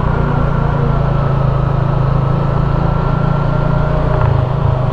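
Motorcycle engine running at a steady cruising speed under wind and road noise. The engine note shifts about four seconds in.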